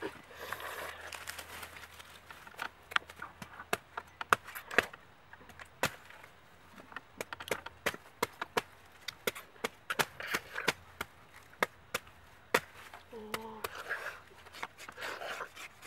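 A knife chopping and slicing into palmyra palm fruits: many sharp, irregular chops and cracks as the blade cuts through the husk and flesh.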